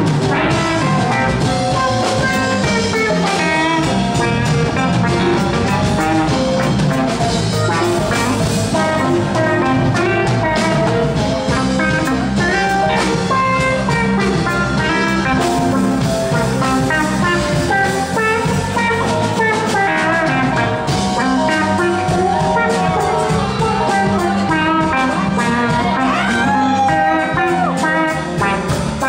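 Live rock band playing: electric guitars over a drum kit, with a melodic electric guitar lead line and a note bent in pitch near the end.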